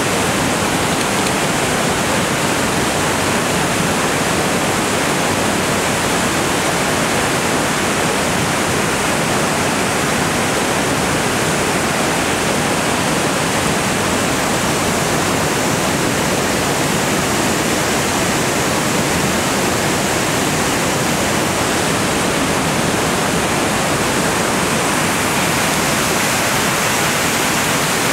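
Fast water rushing over rocks, a loud, even, unbroken rush of whitewater.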